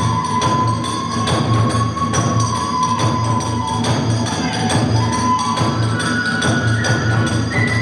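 Kagura hayashi music: a bamboo flute holds long notes, stepping up in pitch near the end, over continuous drumming and clashing hand cymbals.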